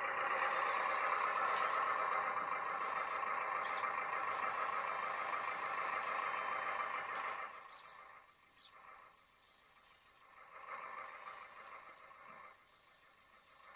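LESU MCL8 1/14 RC hydraulic wheel loader working, its electric hydraulic pump whining steadily as the lift arm raises and the bucket tilts. The sound is fuller for the first seven seconds or so, then thins, with several short bursts of noise in the second half.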